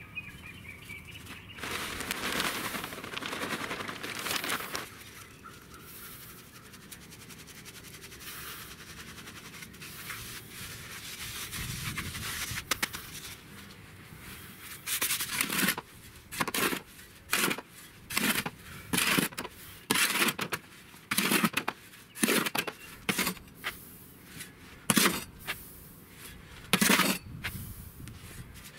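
Potting soil being worked by hand: first a few seconds of rustling as the soil is stirred and sifted, then from about halfway a run of sharp scrapes about once a second as a spade digs into soil in a metal wheelbarrow and tips it into a plastic planter.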